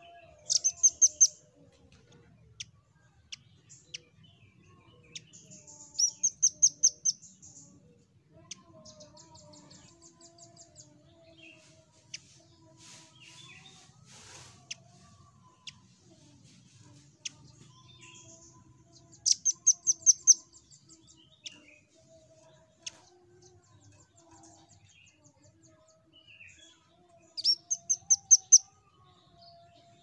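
Velvet-fronted nuthatch (rambatan) calling: four short, rapid trills of high, sharp chipping notes several seconds apart, with faint single chips in between.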